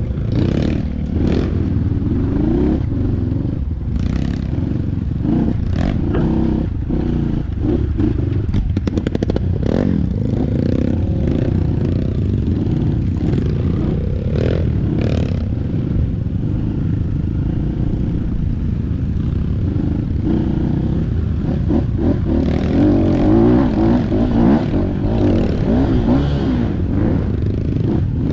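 Trail motorcycle engine running while riding over a rough trail, with rattling and knocks from the bike throughout. The engine revs up and down, running hardest about three quarters of the way through.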